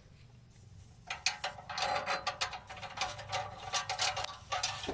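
Ratchet wrench clicking in quick runs as it is swung back and forth, tightening a nut on the exhaust. The clicking starts about a second in.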